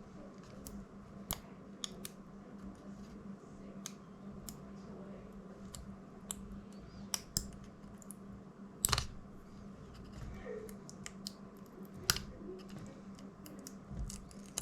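Scattered small sharp clicks and taps of hand tools on the drone's plastic parts as a glued-in front LED is pried free, with two louder clicks about nine and twelve seconds in. A low steady hum runs underneath.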